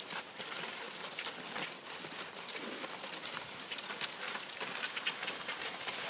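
Cross-country skis and poles on packed snow: irregular crisp clicks and crunches of pole plants and strides over a faint hiss.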